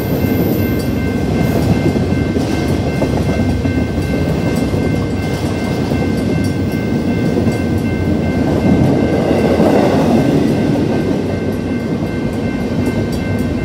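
Empty BNSF freight cars rolling past over the rails in a steady rumble, with a mechanical crossing bell ringing continuously over the wheel noise.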